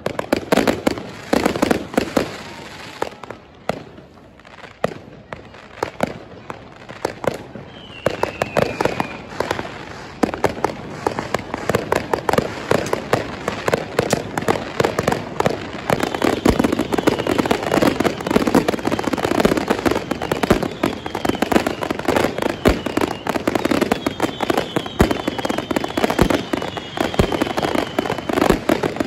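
Fireworks and firecrackers going off in rapid succession: sharp bangs and crackling, getting busier from about ten seconds in. A whistling firework falls in pitch around eight seconds, and several more whistles come in quick succession near the end.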